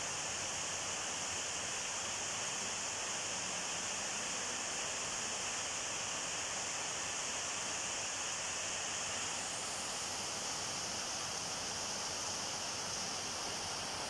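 Steady, even hiss with a bright high band and no distinct events; no cat calls are heard.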